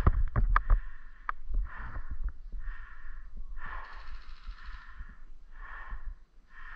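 A person breathing close to the microphone, about five slow breaths, with a few light clicks during the first second.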